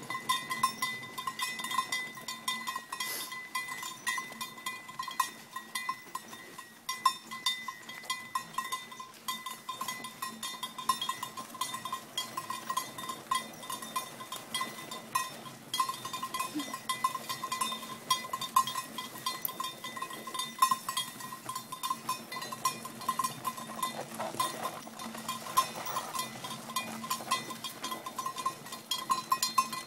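A bell on a walking team of oxen clanking in a quick, uneven rhythm, with light knocks and scraping underneath.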